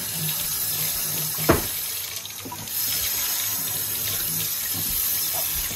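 Water running steadily from a kitchen tap into a sink, easing off briefly about two and a half seconds in. A single sharp knock sounds about a second and a half in.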